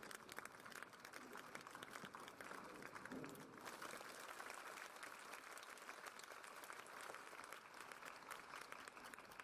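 Tennis crowd applauding: a dense, even patter of hand claps.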